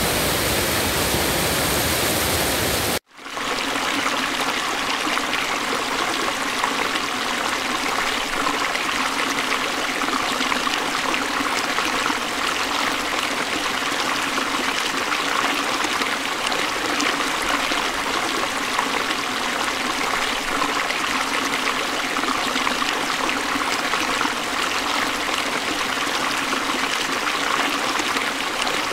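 Water rushing steadily over a low concrete weir, a continuous cascade noise. It cuts out abruptly for a moment about three seconds in, then comes back, thinner in the low end.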